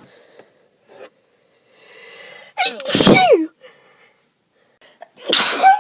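A person sneezing from allergies: a breath drawn in, then a loud sneeze with a falling voiced cry about halfway through, and a second sneeze starting near the end.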